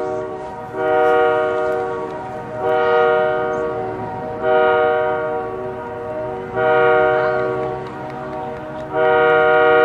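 Canadian Pacific Holiday Train locomotive air horn sounding a series of long blasts, one starting about every two seconds. Each blast holds several notes at once.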